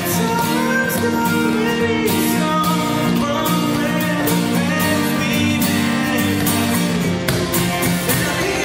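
Acoustic pop song played live: two acoustic guitars strummed steadily while a man sings the melody.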